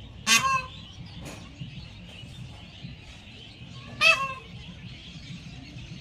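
Peahen (female Indian peafowl) giving two short, loud calls, one just after the start and one about four seconds in, over a faint steady background hiss.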